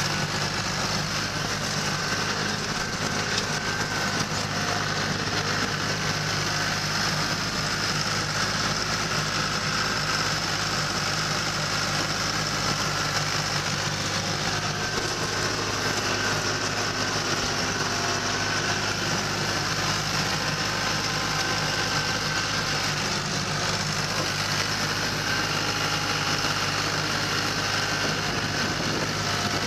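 Tractor mower engine running steadily while mowing grass, heard from the driver's seat, with an even mechanical hum that holds level throughout.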